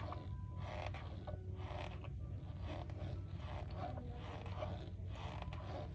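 Metal spoon pressing and stirring packed cornstarch in a container, giving squeaky crunching strokes about twice a second over a steady low hum.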